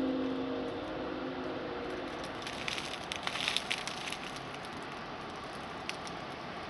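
A vehicle horn sounding several notes at once, fading out within the first couple of seconds over steady traffic and engine noise, then a short spell of crackling and rustling in the middle.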